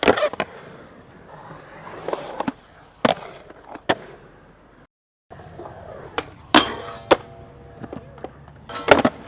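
Skateboard wheels rolling, broken by about six sharp clacks and slaps of the board popping and landing. The sound cuts out for a moment just before the middle.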